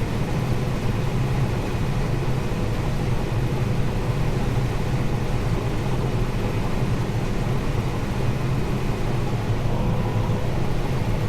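Combine harvester running steadily while picking corn: a constant low drone with no change in pace.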